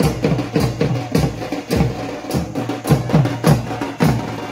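Several dhol barrel drums beaten together in a fast, steady rhythm of about three deep strokes a second. Each stroke drops in pitch, and sharp high cracks fall between them.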